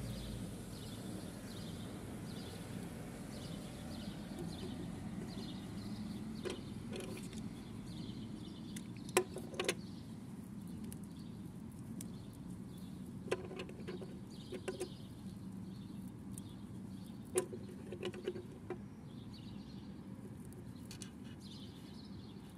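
Small, sharp clicks and taps of hard plastic doll limbs and a plastic toy tricycle being handled and set on a wooden table, a few of them in quick pairs, over a low steady hum with faint high chirps in the background.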